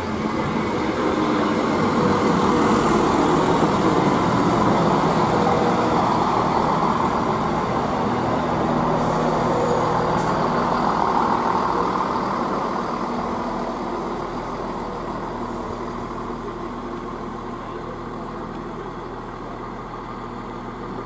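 CrossCountry Class 170 Turbostar diesel multiple unit running into the platform past the listener, a broad rumble of wheels and diesel engines loudest in the first half. It then fades to a quieter steady engine hum as the train draws along the platform.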